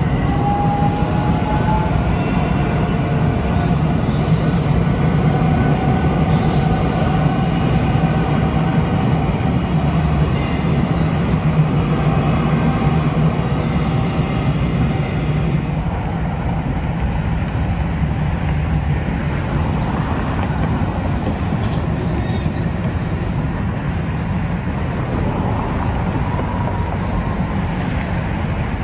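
DART Kinki Sharyo light rail train running past at street level. A steady rumble carries a thin whining tone over the first half, which fades after about halfway as the sound eases off.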